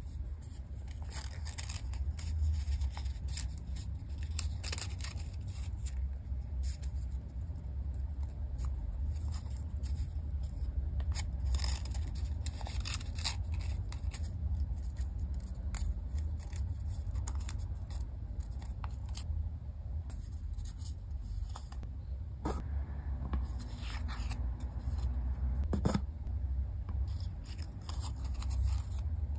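Small sheet of origami paper being folded and creased by hand: irregular crisp crackles, rustles and pressing sounds as the folds are made and run down with the fingers, over a steady low hum.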